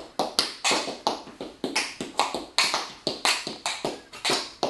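Tap shoes striking a concrete garage floor in a quick, even run of taps, about five a second, each with a short ringing echo: tap dancing steps.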